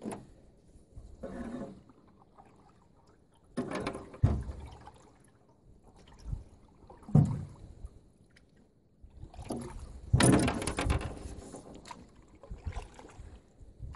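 A paddle working the water beside a small boat: irregular splashing strokes a few seconds apart, the loudest a longer run of strokes near the end.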